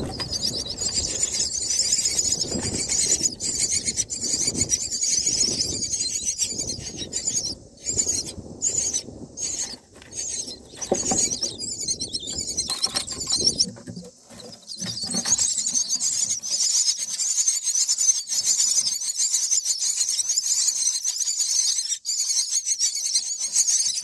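Common myna nestlings begging: a continuous fast, high-pitched chittering of many small calls, broken by a few short pauses midway. A low rustling runs under the first half.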